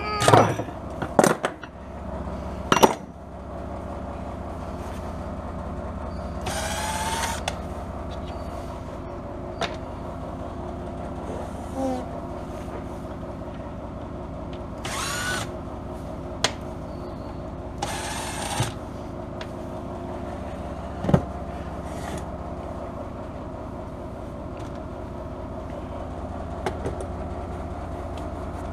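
Cordless drill/driver run in three short bursts, its motor pitch rising as it spins up, backing out screws on a portable generator's housing. A few sharp knocks of tools and parts being handled come between the bursts.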